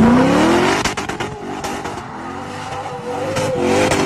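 Large SUV's engine revving hard as it spins its tyres in a burnout. The pitch climbs steeply at the start, a steady tyre squeal runs through the middle, and the engine note rises again near the end.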